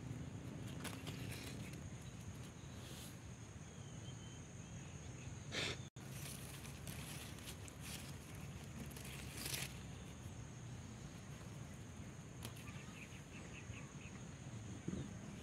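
Tomato plants' leaves and stems rustling and brushing as a hand moves through them and handles the fruit, in scattered short bursts over a steady outdoor background with a faint steady high tone. The sound cuts out for an instant about six seconds in.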